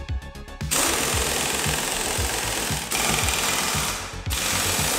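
A handheld power tool running in long loud bursts. It starts under a second in and pauses briefly twice, over background music with a steady beat.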